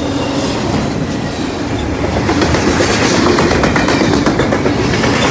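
CSX double-stack intermodal freight train rolling past: a steady rumble of wheels on rail with clickety-clack, growing a little louder with rapid clicking from about two seconds in.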